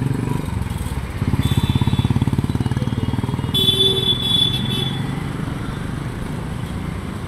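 Street traffic: motorcycles and cars driving past, one motorcycle engine loudest as it passes close about a second in. A short, high-pitched horn beep sounds near the middle.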